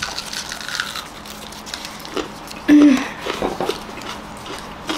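Crunchy biting and chewing of raw onion, with small crackles of papery onion skin being peeled. A short vocal hum or exclamation comes a little before the middle and is the loudest moment.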